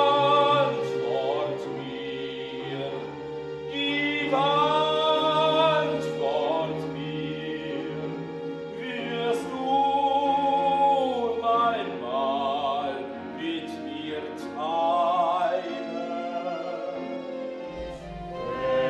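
Operatic singing: a voice holding long notes with vibrato over a sustained instrumental accompaniment.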